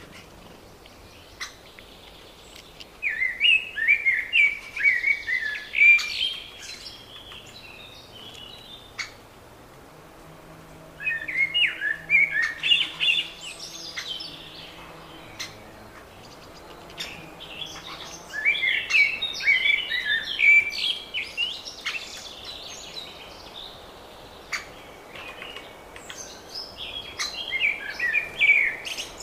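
A songbird singing a loud phrase of rapid, warbling notes lasting two to three seconds, repeated about every seven seconds, four times. Short chips and calls from other birds fall between the phrases.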